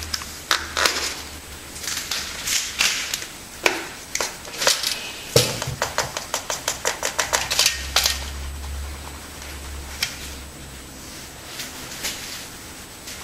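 Irregular clicks and knocks, with a quick run of about a dozen clicks around the middle.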